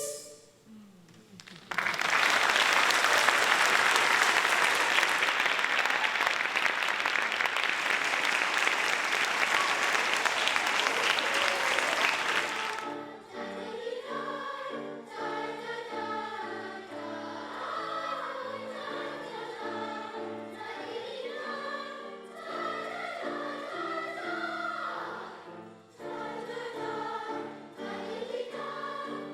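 A choir's singing ends, and after a brief hush an audience applauds for about eleven seconds; then a choir starts singing again.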